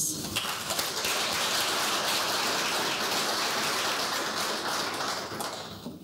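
Audience applauding: dense, steady clapping that starts at once and dies away near the end.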